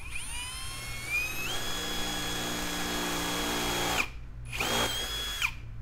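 Cordless drill spinning up with a rising whine, running steadily for a couple of seconds, then stopping, followed by a second short run of about a second. It is drilling a hole through the Jeep's plastic tailgate trim panel at a centering dimple.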